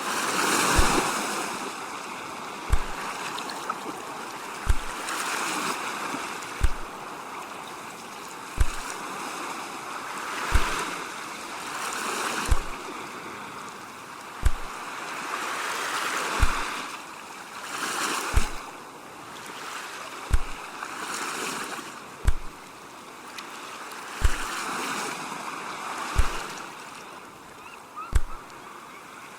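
Ocean waves washing in and drawing back, the hiss swelling and fading every few seconds. A soft, low thump sounds evenly about every two seconds beneath the surf.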